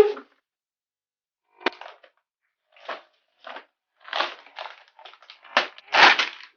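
A graphics card's cardboard box and packaging being handled and opened: a sharp click, then short scraping and rustling noises at irregular intervals, the loudest and longest about four and six seconds in.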